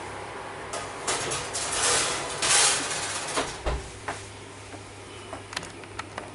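Kitchen handling noises: a couple of seconds of scraping and rustling, scattered clicks, and a dull thump a little past halfway.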